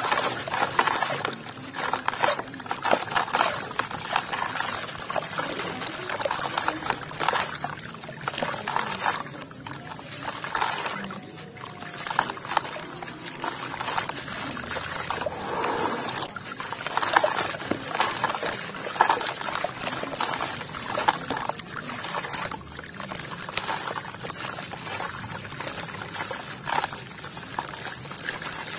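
A pressed block of red dirt crumbling in the hands, its gritty crumbs pouring and trickling into water, then handfuls of wet grit squeezed so they crumble and drip back into the water. The sound is an irregular, super crunchy and gritty crackle mixed with watery trickling.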